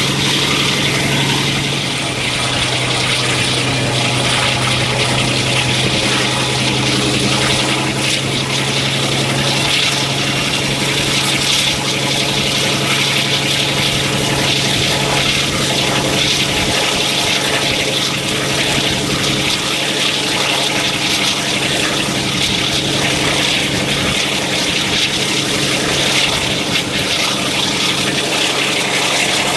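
Class 52 'Western' diesel-hydraulic locomotive D1062 working hard under power, its twin Maybach V12 diesel engines giving a loud, steady thrash. A deep engine note is strong for about the first fifteen seconds, then weakens.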